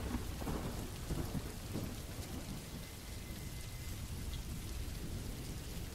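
Steady rain ambience, an even hiss with a low rumble underneath.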